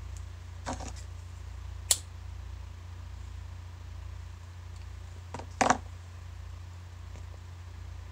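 A cigarette lighter being used to light a cigarette: a sharp click about two seconds in and a louder short burst of noise just before six seconds, over a steady low hum.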